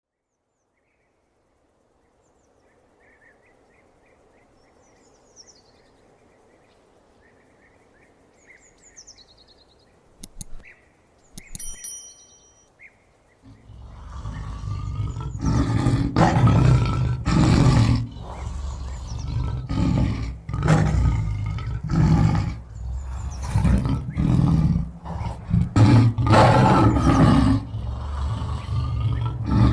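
Faint chirping and a few sharp clicks over a low hiss. About halfway through, a lion begins roaring and growling loudly, in repeated deep calls.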